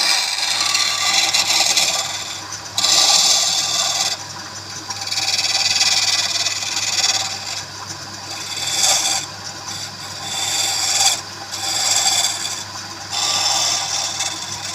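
Woodturning: a tool or abrasive scraping against wood spinning on a lathe, in repeated passes of one to three seconds each, over a steady low hum.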